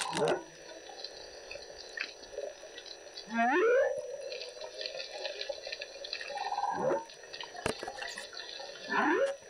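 Humpback whale calls heard underwater: a string of gliding moans and whoops, one falling at the start, one rising steeply and holding a little over three seconds in, a short buzzing tone around six and a half seconds, and more rising and falling calls near the end.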